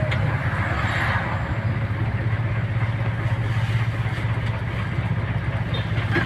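Steady engine drone of a motor vehicle on the move, with a constant rush of road and wind noise.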